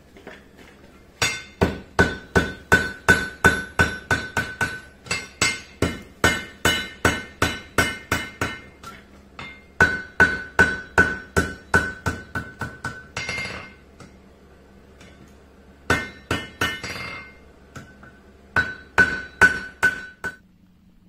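Hand-hammer blows on hot steel on a blacksmith's anvil, in quick runs of about three strikes a second, each blow leaving a clear ringing tone from the anvil. Short pauses fall between runs, with a longer gap about two thirds of the way through.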